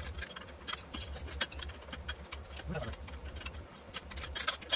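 Hand tools clicking and ticking on the metal of the ATV's rear axle hub, a run of short, irregular clicks.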